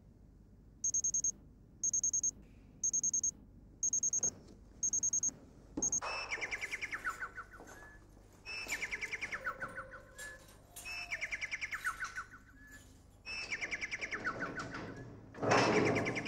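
Mobile phone sounding: short bursts of a high electronic beeping about once a second, then a repeating warbling electronic tune of stepped notes. Near the end comes a louder burst of noise.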